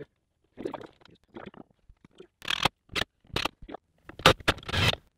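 Irregular short scrapes and taps of hands and tools on wood and metal while a gas strut bracket is marked out and positioned for mounting.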